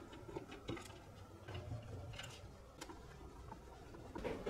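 Long-shaft screwdriver working in the screw holes of a plastic speaker housing: scattered light clicks and taps of the metal tool against the screws and plastic, a few a little louder.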